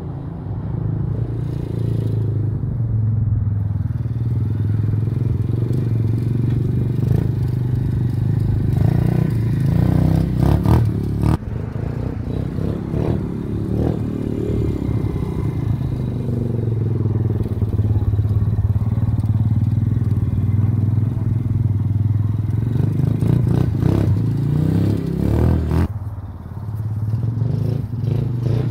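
Apollo 125cc dirt bike's small single-cylinder four-stroke engine running as it is ridden, repeatedly revving up and easing off, with a sharp clack about eleven seconds in.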